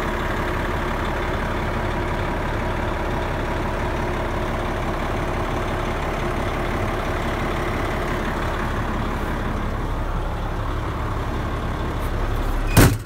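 Detroit diesel engine of a 1999 Oshkosh 4x4 truck idling steadily, heard from inside the cab, with a single sharp knock near the end.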